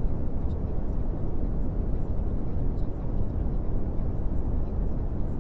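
Steady low rumbling noise that does not change, with faint high ticks here and there.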